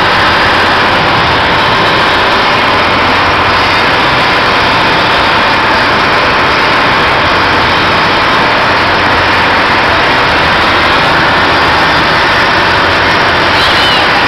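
Loud, steady engine drone of running fairground ride machinery, unbroken throughout. A couple of brief high squeaks come near the end.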